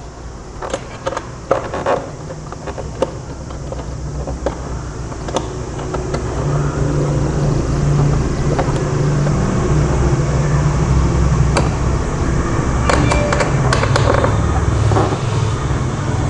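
Small metallic clicks and taps of a hex key and bolt being worked into an aluminium radiator guard on a motorcycle. Under them runs a steady low rumble that grows louder about six seconds in.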